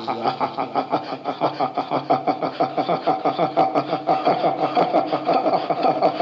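A person laughing in a rapid, steady run of short 'ha' pulses, about five a second, without a break.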